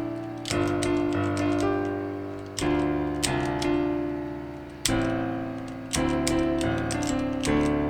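Virtual piano played on a computer keyboard: piano notes and chords struck every second or two, each ringing and fading away. The clack of the computer keys being pressed sounds along with them.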